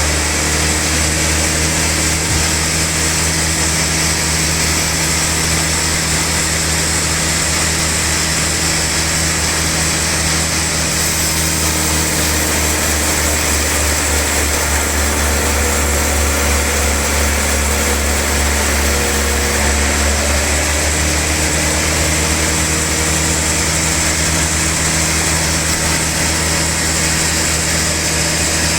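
Sawmill log saw running steadily: a continuous motor hum with a high whine above it, its pitch shifting slightly about two-thirds of the way through.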